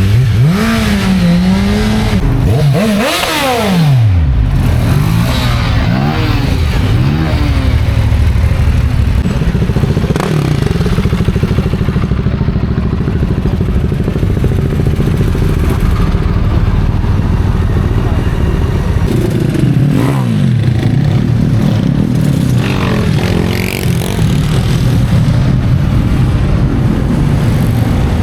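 Motorcycles riding past, their engine notes rising and falling as they go by, with some revving, over a constant low rumble of many engines.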